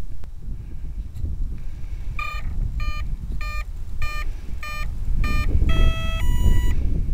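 Electronic beeping from an electric RC helicopter's speed controller at power-up: six short beeps about every 0.6 s, then two longer tones at different pitches. This is the typical arming sequence before spool-up. Steady wind rumble on the microphone underneath.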